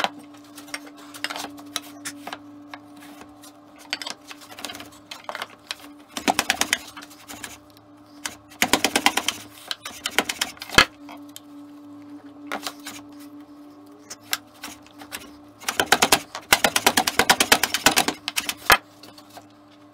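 Hand plane on its side on a shooting board, trimming the ends of oak stretchers square. It comes in bursts of quick strokes, three main runs with scattered single clicks between them.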